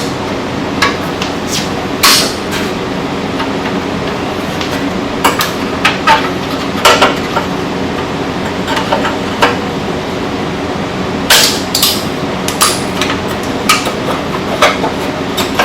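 Scattered metallic clicks and clinks of steel exhaust springs and vise grips as the springs are worked off a muffler, over a steady background hum.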